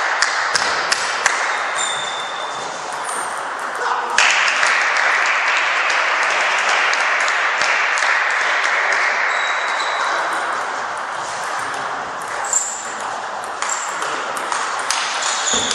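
Table tennis balls clicking off bats and tables in a rally, with a steady rush of noise that sets in sharply about four seconds in and fades near the end.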